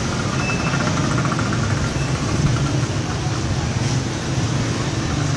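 A motor vehicle's engine running steadily, with a continuous low hum and road noise.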